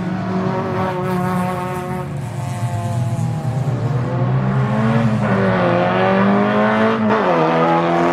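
Race car engines running hard on the circuit. The pitch climbs and then drops sharply twice, about halfway through and again near the end, as a car shifts up a gear.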